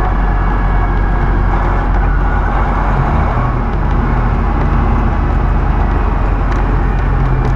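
Truck's diesel engine running steadily under way with road noise, the turbo barely working.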